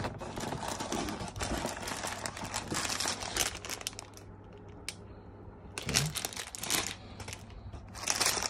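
Clear plastic bags of Lego Technic pieces crinkling as they are picked up and handled, in bursts: busiest over the first few seconds, quieter around the middle, then again briefly near the end.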